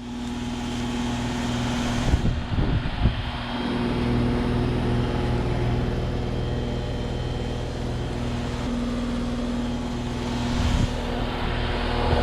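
1997 Carrier 38YCC outdoor heat pump running steadily: compressor hum under the even rush of the condenser fan. A few brief low rumbles come about two seconds in and again near the end.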